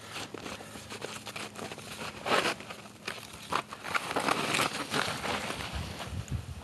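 Crunching and scraping of snow as a person in snowshoes sits down and slides down a snowy slope on his backside. It comes as a run of irregular crackling crunches, the sharpest about two seconds in and the densest a little past the middle.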